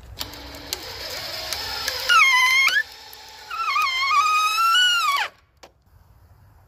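DeWalt cordless hammer drill driving a long screw into pallet wood, run in two bursts with a short pause between. Its motor whine dips in pitch as the screw bites, and the second burst winds down and stops a little after five seconds in.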